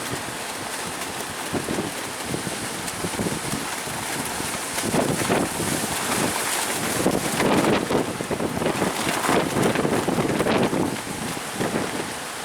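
Strong wind buffeting the microphone over the steady rush of high sea waves, the gusts growing heavier and more uneven from about five seconds in.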